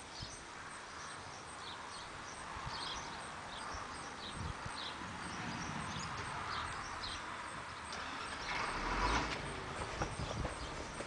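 Outdoor ambience: a steady background hum with small birds chirping now and then, and a short swell of rushing noise about nine seconds in.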